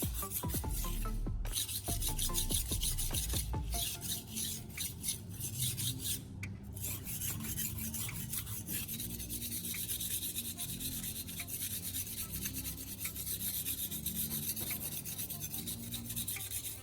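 Steel knife blade stroked back and forth on the fine 3000-grit side of a whetstone under a baking soda and water paste: a continuous run of rasping scrapes, pausing briefly about a second in and again about six seconds in. This is the final polishing pass of the edge.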